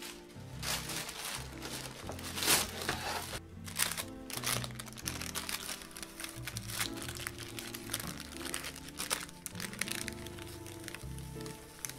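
Baking paper crinkling and rustling in several bursts as it is peeled off a freshly baked chocolate sponge sheet, loudest in the first few seconds. Background music plays underneath.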